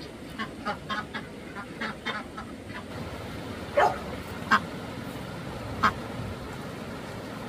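Animal calls: a quick run of faint short calls, then three sharp, louder calls in the second half.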